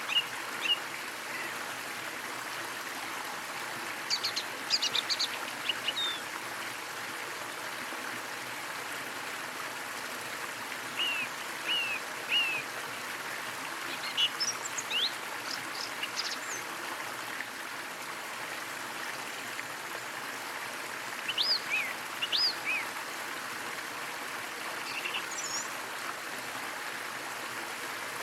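A small waterfall running steadily, with birds chirping in short scattered bursts every few seconds.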